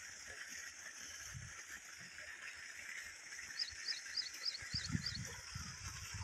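Open-field ambience: a steady high hiss, with a bird calling a quick run of about six short chirps a little past the middle. Low thumps come near the end.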